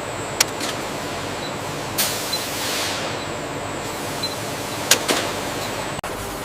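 Steady whir of processing-plant machinery, with a few sharp clicks or knocks: one about half a second in, one about two seconds in, and two close together near five seconds.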